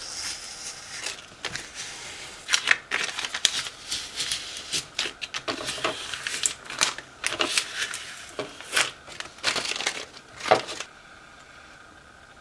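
Transfer tape being peeled slowly off a vinyl stencil, crackling and crinkling in irregular bursts that die away near the end.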